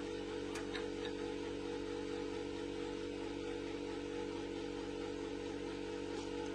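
Background music of held, sustained notes, moving to a new chord near the end, with a few faint ticks about a second in.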